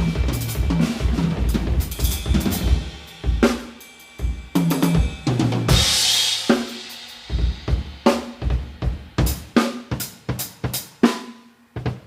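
A drum kit played live during a sound check: bass drum, snare and hi-hat strokes with low bass notes underneath. A cymbal crash rings out about halfway through, then the playing thins to separate drum hits, about two a second.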